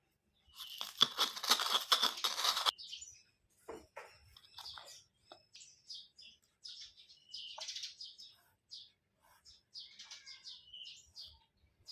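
Small birds chirping in short, high, repeated calls. About half a second in there is a loud crackling noise lasting about two seconds; its source is unknown.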